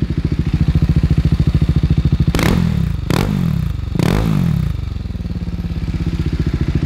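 BMW G310R's single-cylinder engine idling through an Akrapovic full-system exhaust with its dB-killer baffle fitted. It is blipped three times in quick succession about halfway through, and the revs drop back to idle after each blip.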